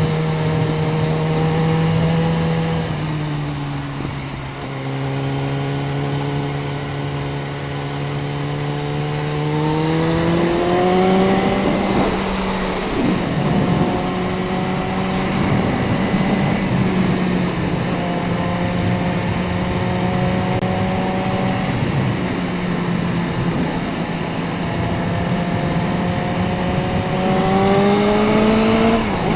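Suzuki Bandit 650N's inline-four engine running under way, its pitch rising with throttle and stepping at gear changes, with wind rush over the action camera's microphone.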